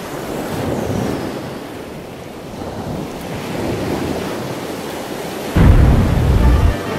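Stormy sea sound effect: a steady rush of surf and wind that swells and fades. About five and a half seconds in comes a sudden deep boom, the loudest thing here, lasting about a second.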